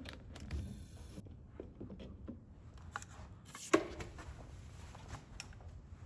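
Faint handling and movement noise: scattered light clicks and rustles, with one sharper knock a little before four seconds in.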